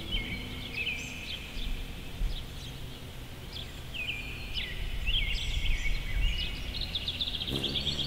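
Baltimore oriole calling repeatedly: short whistled notes and quick chattering rattles, over a low background rumble.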